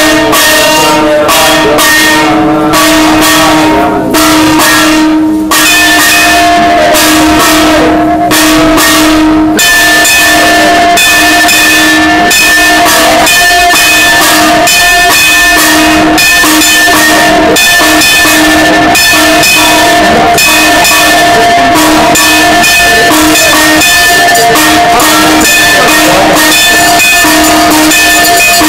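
Devotional temple music: bells ringing rapidly along with drum beats and steady held tones, growing fuller about a third of the way in.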